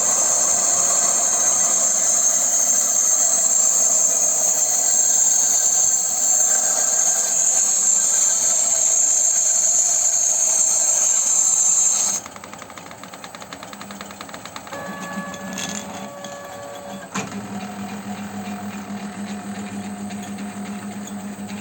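Homemade lathe machining cast iron: a loud, steady high hiss over the running machine for about twelve seconds, then it cuts off suddenly, leaving a quieter steady motor hum with a fixed whine.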